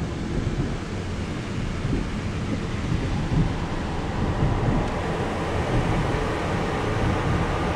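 Steady low rumble and hiss of road, engine and outside noise heard from inside a car's cabin.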